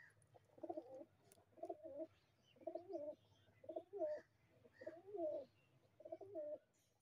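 Domestic pigeon cooing: a steady series of short, throaty coo phrases, about one a second.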